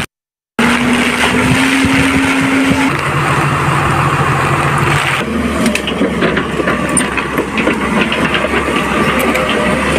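Diesel engines of excavators working in the rain, a steady drone whose pitch steps down about three seconds in. The sound drops out for a moment at the start, and about five seconds in it changes to a lower drone with scattered clicks.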